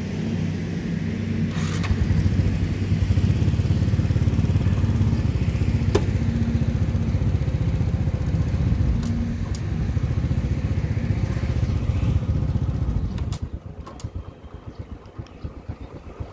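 An engine runs steadily with a low rumble, then drops away sharply about thirteen seconds in, leaving a fainter, uneven rumble.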